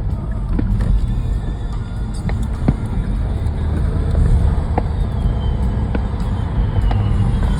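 Steady low rumble of a car on the road, with scattered sharp pops of fireworks going off in the distance, a few seconds apart.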